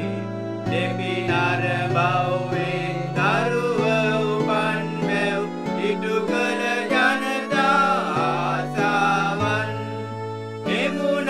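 A carol being sung with instrumental accompaniment: a singing melody over held chords and a steady bass line.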